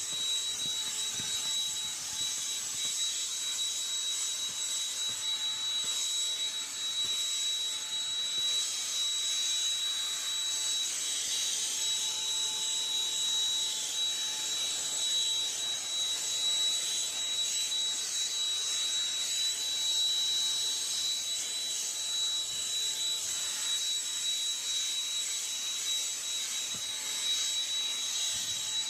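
Black & Decker CHV1410L 16-volt lithium cordless handheld vacuum running steadily: a high, even motor whine over the rush of air.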